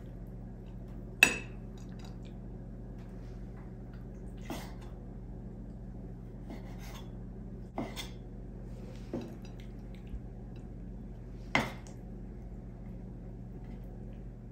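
About six sharp metal clinks of a cooking utensil knocking against the pot as the food is stirred. The loudest, with a brief ring, comes about a second in. A steady low hum runs underneath.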